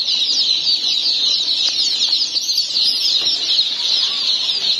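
A crowd of day-old chicks peeping nonstop in plastic crates: a dense chorus of high, short, falling cheeps.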